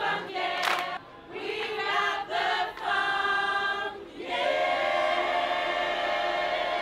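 A choir singing a cappella: a few short sung phrases with brief breaks, then a long chord held from about four seconds in.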